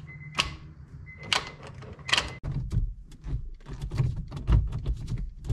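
Honda Civic Si EP3 manual gear shift being run through the gears on freshly fitted solid-mount shifter bushings. First come a few sharp clacks from the shift linkage on top of the transmission. Then, from about two and a half seconds in, a quick run of clicks and clunks from the gear lever.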